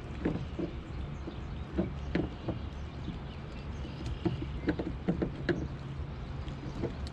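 Irregular light clicks and scrapes of a hand tool on the plastic compression nuts of a cable entry gland as they are tightened down around the wires, over a steady low hum.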